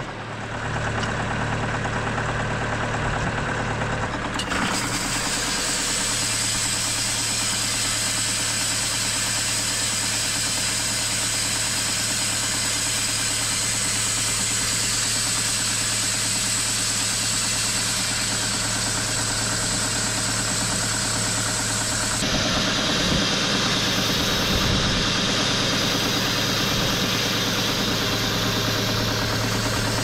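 TimberKing 2520 portable sawmill's engine running steadily at idle. About four seconds in, a steady high whine joins the engine sound, and the sound shifts again about three quarters of the way through.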